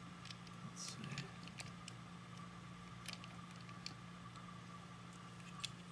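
Faint, scattered clicks and light scraping of the hard plastic parts of a Transformers Megatron toy being handled and fitted together, over a steady low hum.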